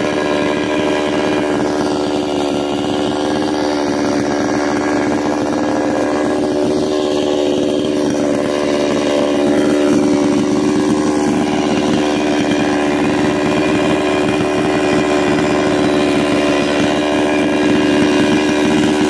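Ogawa two-stroke petrol chainsaw with a 22-inch bar running at a steady, unchanging speed, with no revving and no cutting load.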